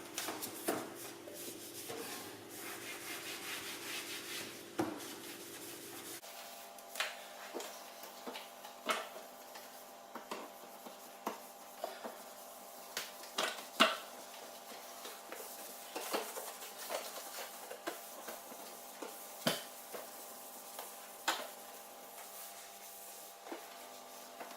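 Cloth rubbing and wiping the inside of a dishwasher, with scattered light knocks and clicks every second or two.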